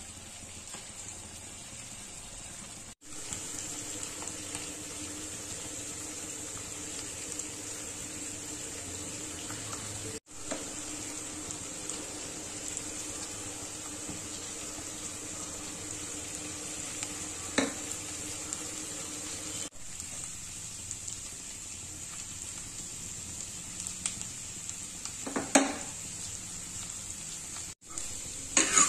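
Chicken pieces frying in oil in a stainless steel pan with a steady sizzle. A few sharp clinks of a steel spoon against the pan come in the second half as it is stirred.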